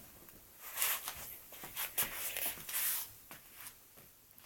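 Soft rustling and scuffling, several short bursts with a few light clicks among them, fading out near the end.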